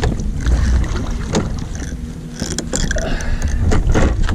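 Wind buffeting the microphone on a small fishing boat, over a faint steady low hum from the trolling engine, with several sharp clicks and knocks scattered through.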